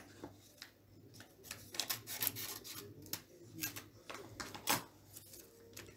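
Paper seed packet being handled and snipped open with scissors: a scattered series of short paper rustles, crinkles and soft clicks.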